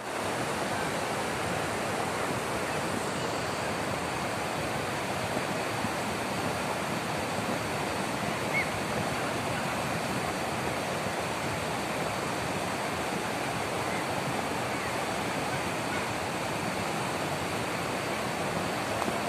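Muddy flash-flood water rushing across a wide stony riverbed, a steady, unbroken rushing noise.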